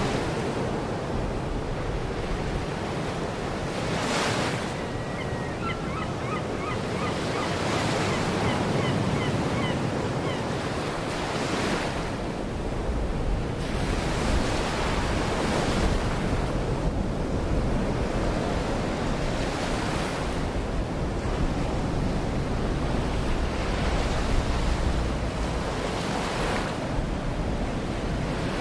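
Baltic Sea surf: waves washing in and breaking on the shore, surging every few seconds over a steady rush, with wind rumbling on the microphone. Faint bird calls about five to ten seconds in.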